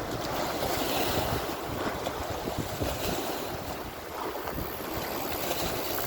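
Steady rushing of wind buffeting the microphone, with no clear single event.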